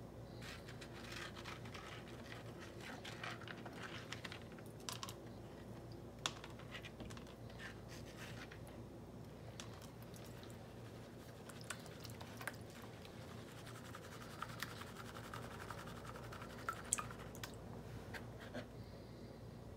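Wet black-sand concentrate and small stones scraping and clicking against a 9-inch plastic gold pan as it is worked by hand and swirled with water, faint, with scattered sharp ticks and a steady low hum underneath.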